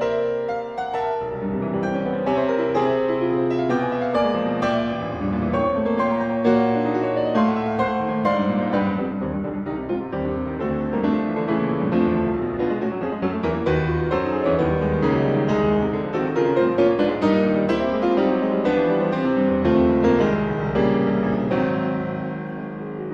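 Background piano music, a steady flow of notes throughout.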